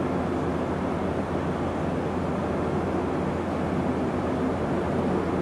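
Steady drone on the flight deck of an Airbus A400M in flight: its four TP400-D6 turboprop engines and eight-bladed propellers give a constant low hum under airflow noise.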